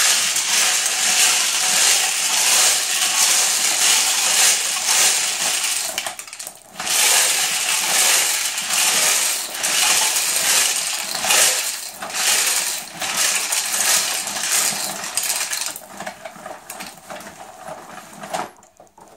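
Dried beans rattling and tumbling inside the plastic drum of a Bruder Scania R-Series toy cement mixer as the drum is turned by hand, spilling out down the chute as pretend concrete. The clatter breaks off briefly about six seconds in, thins out in the last few seconds, and stops near the end.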